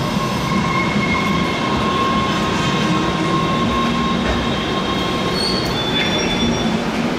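MBTA Red Line subway train pulling into an underground station: a steady rumble with a long high-pitched squeal, and a few shorter, higher squeaks about five to six seconds in.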